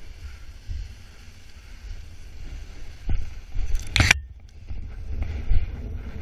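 Wind buffeting the camera microphone as a paraglider launches, a steady low rumble with a few knocks and a sharp rustling burst about four seconds in.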